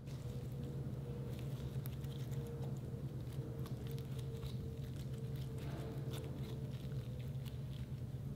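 Soft slime being squished, folded and stretched by hand, making many small sticky clicks and pops over a steady low hum.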